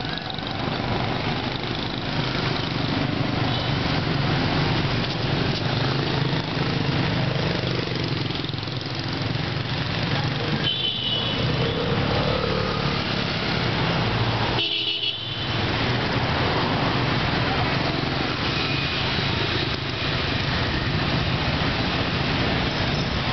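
Street traffic noise dominated by motorbikes, their small engines running with a steady hum, with a few short horn toots.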